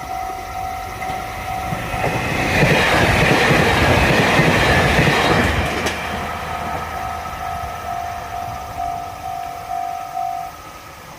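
Japanese level-crossing warning bell ringing in rapid pulses while a limited express train rushes past over the crossing for about three seconds, its wheels and rush drowning the bell. The bell then carries on alone and stops about ten seconds in as the crossing clears.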